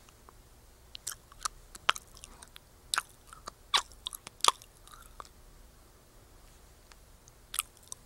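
Chewing gum worked in the mouth close to the microphone: a quick run of sharp, wet smacks and snaps over the first five seconds, a pause, then one more smack near the end.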